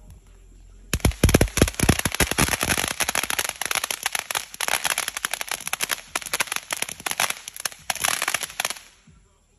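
A string of firecrackers going off in rapid, continuous pops. It starts about a second in and dies out near the end.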